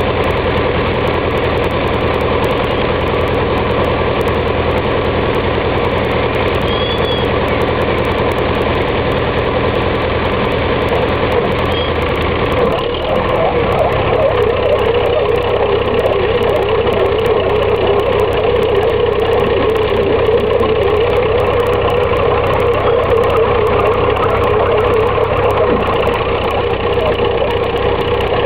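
Diesel tractor engine running steadily, then working harder and louder from about halfway through as the tractor, sunk in mud, strains to pull free.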